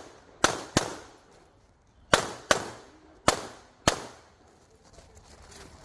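Pistol shots fired in a practical-shooting stage: a quick pair just under a second in, another quick pair a little over two seconds in, then two more shots about a second later, each a sharp crack with a short echo.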